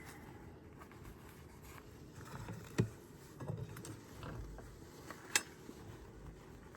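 Faint handling noises from work on an open wooden beehive: low rustling with a few sharp clicks and knocks, the two clearest about three seconds and five and a half seconds in.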